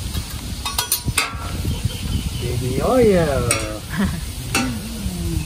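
Sliced peppers sizzling on a hot teppanyaki griddle, with the chef's metal spatula clicking and scraping on the steel a few times. About three seconds in, a short pitched sound rises and then falls, louder than the sizzle.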